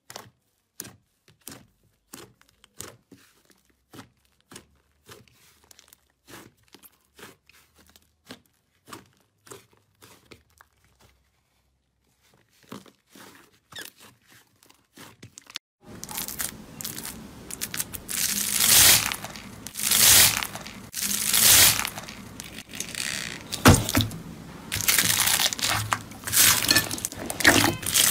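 Hands pressing and stretching thick fluffy slime, making small sticky pops and clicks about twice a second. About sixteen seconds in it changes to loud, dense crackling and squishing as clear slime mixed with foam beads is squeezed by hand.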